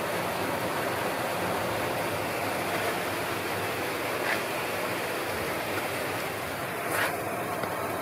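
Steady rush of water from an artificial waterfall pouring into a pool, with two brief sharper sounds about four and seven seconds in.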